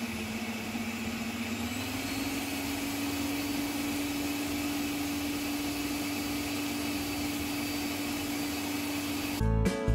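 Kenwood stand mixer whisking egg whites in a stainless-steel bowl: a steady motor hum that rises in pitch a second or two in, as the speed is turned up once the whites have started to foam, then holds at the higher speed.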